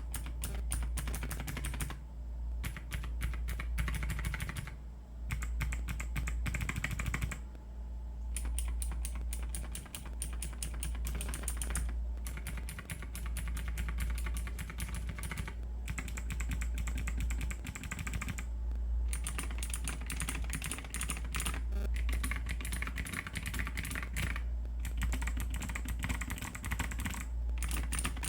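Clicky mechanical keyboard switches being typed on in fast runs of sharp clicks, with short pauses every few seconds, over a low steady hum.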